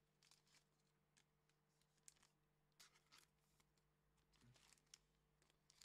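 Near silence: faint room tone with a low steady hum and a few soft clicks and rustles, typical of trading cards and packs being handled.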